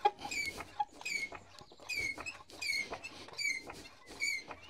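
Hand-pumped hydraulic pump truck used as a jack, squeaking once on each pump stroke: six short squeaks, a bit more than one a second, with small clicks between, as it slowly raises the car. The pump truck is low on hydraulic oil.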